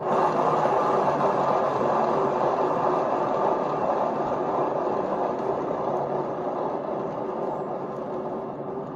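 HomeRight paint turntable spun hard by hand, its bearings giving a steady whirring rush that starts suddenly and slowly fades as the turntable coasts down.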